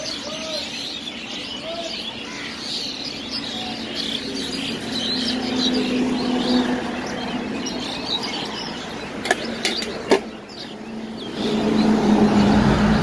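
Small birds chirping over a steady low hum. Three sharp knocks come about nine to ten seconds in. Near the end a loud, continuous rattling rush sets in as puffed rice (muri) is shaken in a lidded steel can to mix the jhal muri.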